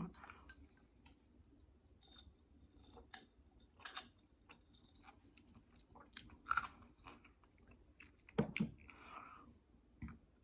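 Close-miked, faint chewing and wet mouth smacks of a person eating soft breakfast enchiladas, with scattered irregular clicks and a slightly louder pair of knocks about eight and a half seconds in.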